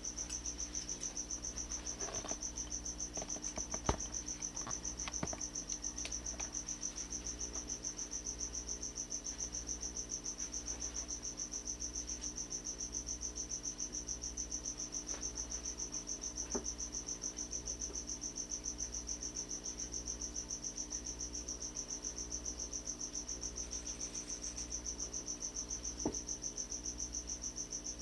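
Steady high-pitched insect trilling, like a cricket's, with a low hum pulsing evenly beneath it and a few soft clicks, the sharpest about four seconds in.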